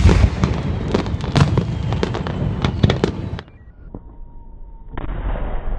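Fireworks bursting in quick succession: a dense run of sharp bangs and crackles that cuts off suddenly about three and a half seconds in. About five seconds in, a duller, muffled rumble of noise returns.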